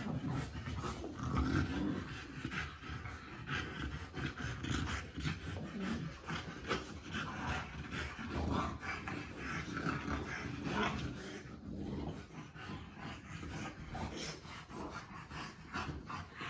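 French Bulldogs making continuous dog noises, a rapid, unbroken string of short sounds.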